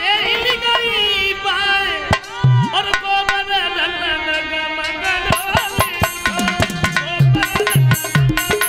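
A man sings a devotional bhajan through a microphone and PA, his voice held and wavering on long notes, over music. Hand-drum accompaniment joins in, and steady low drum strokes, about two a second, become prominent over the last second or two.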